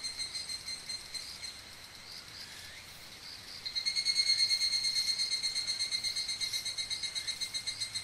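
Higurashi evening cicadas (Tanna japonensis) singing their rapid, pulsing high-pitched call. One song fades out in the first second or two, and another starts abruptly just before the middle, loudest at first and slowly dying away.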